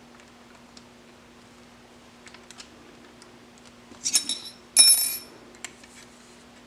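A steel rule and an Allen key handled against a hardened steel vise and the bench: two short clusters of sharp metallic clinks that ring, about four and five seconds in, after a few light ticks, over a steady low hum.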